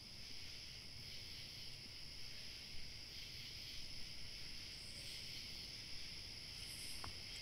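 Faint, steady high-pitched trilling of crickets, with a few small clicks.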